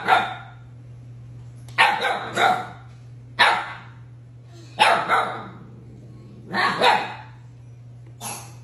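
Husky puppy barking at an older husky in short, harsh bursts every second or two, some of them doubled.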